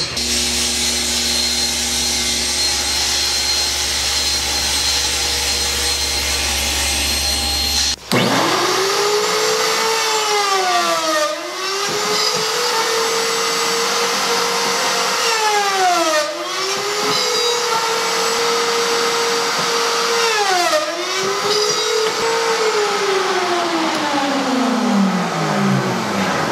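A table saw running as a panel is ripped, then, about eight seconds in, a benchtop pocket-hole drilling machine spins up. Its motor bogs down and recovers three times as it drills pocket holes, then winds down near the end.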